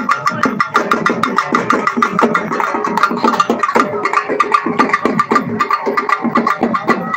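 Thappu (parai) frame drums beaten in a fast, even thappattam rhythm.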